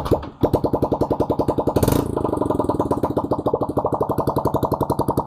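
Yamaha Sniper 150's single-cylinder four-stroke engine just started, running at an even, rapid-pulsing idle, with a short louder surge about two seconds in.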